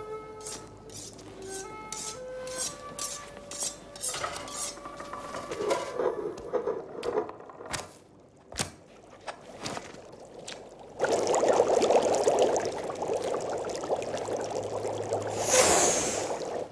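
Cartoon kitchen sound effects: a short melody at first, then a string of light taps and clicks as the small fish hops over the wooden counter, and about eleven seconds in a loud, steady hissing noise that runs on to the end.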